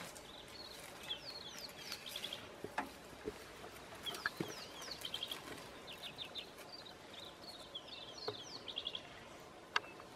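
Wild birds calling in the bush: repeated phrases of quick high chirps and short falling notes, over and over. A few sharp cracks cut in, the loudest near the end.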